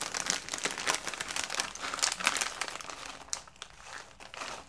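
Crinkly chip bag being torn open and handled: dense crackling for about three seconds, then lighter scattered rustles.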